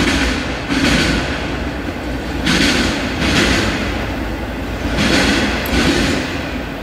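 CSX freight train of autorack cars rolling past with a steady low rumble. Wheel sets clatter on the rails in pairs of bursts about every two and a half seconds as the cars go by.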